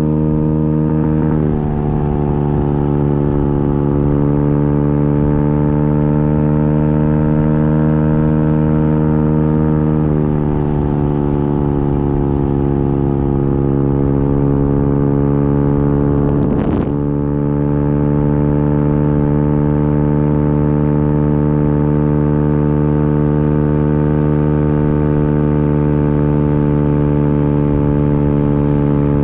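Motorcycle engine running at cruising speed while riding, a steady drone. Its pitch eases down a little twice, and about two-thirds through it dips sharply for a moment and comes back up.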